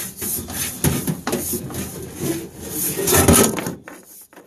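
Inspection camera and its push cable scraping and rubbing against the inside of a dryer vent duct, in irregular bursts, dying away near the end.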